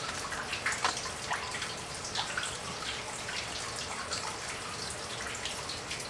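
Water dripping from the rock roof of an old coal mine into standing water on the floor: irregular single drops, several a second, over a faint steady hiss.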